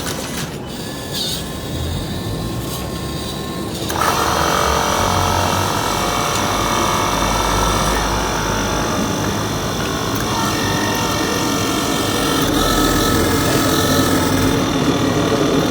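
Large remote-control excavator working as it digs into hard ground. Its motor and hydraulics start a steady whining run about four seconds in, following a few clicks.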